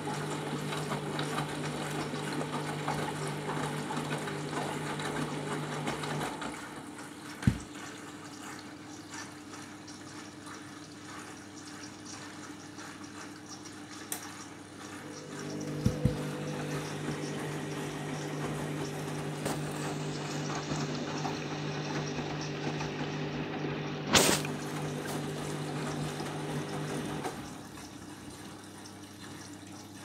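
Candy Grand'O Vita washing machine taking in water for a deep rinse: water rushing into the drum with a steady electrical hum. The fill stops about six seconds in and starts again about halfway through, with a few short knocks in between.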